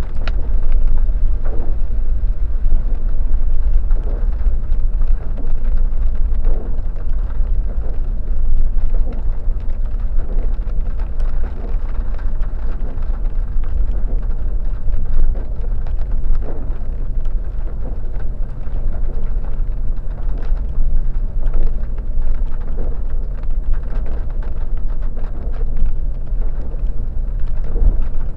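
Off-road vehicle driving over a rough dirt track: a steady, loud low rumble of engine and ground noise, with occasional small knocks from the bumps.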